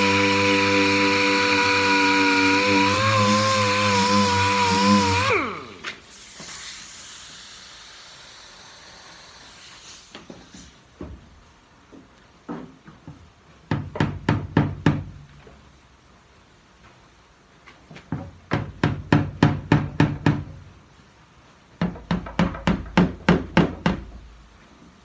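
A power tool runs steadily at high speed, then spins down and stops about five seconds in. After a lull, a hammer strikes the quarter panel's sheet metal in three quick runs of blows, about five a second, working out dings and a crease.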